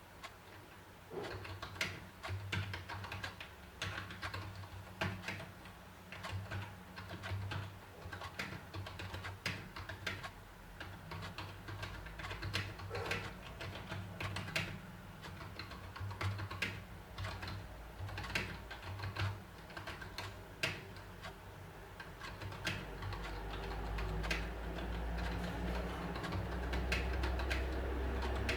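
Typing on an HP 100 wired USB keyboard: a steady run of uneven key clicks, several a second, from its membrane keys.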